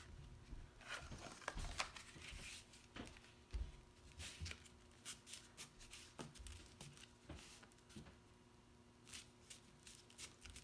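Faint rustling and scraping of cardstock under hands as a glued paper box seam is pressed and smoothed flat, in short irregular strokes that thin out near the end.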